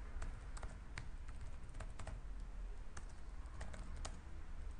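Typing on a computer keyboard: irregular key clicks, over a steady low hum.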